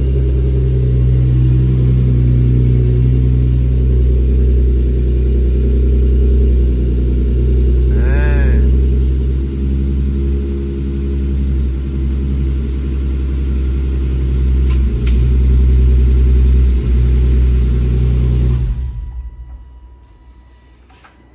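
Infiniti G37's 3.7-litre V6 idling steadily after a fresh fuel pump install and priming, then shutting off near the end.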